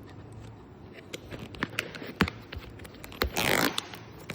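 A plastic snack packet being handled and torn open: small crinkles and clicks, then one short loud rip about three and a half seconds in.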